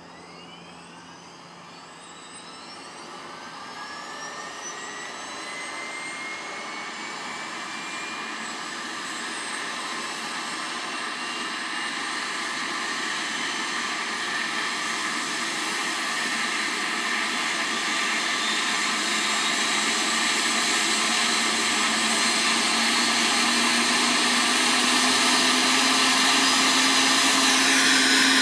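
A Eurocopter EC145 (MBB-BK117 C2) helicopter's twin turboshaft engines starting up: a turbine whine rises in pitch over the first several seconds while a rushing noise grows steadily louder.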